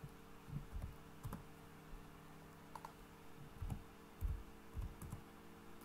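Computer keyboard keys and mouse clicks: a dozen or so soft, irregular taps as values are typed into a field, over a faint steady hum.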